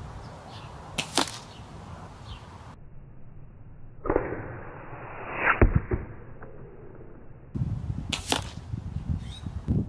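Shots from a .22 Kral Armour bullpup PCP air rifle: several sharp reports, one about a second in, the loudest a little past halfway, and another near the end.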